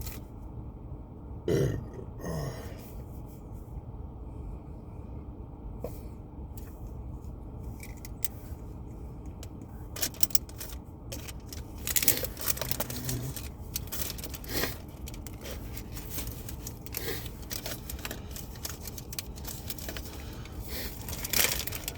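A man burps once, about a second and a half in, then scattered rustling and clicking follow over a low steady rumble.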